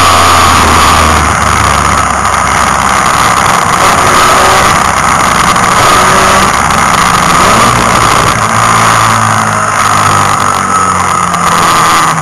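Mazda Capella race car's engine running hard at racing speed, heard loud and harsh from inside the cabin, with road and wind noise over it. The engine note shifts in pitch as the car's speed changes.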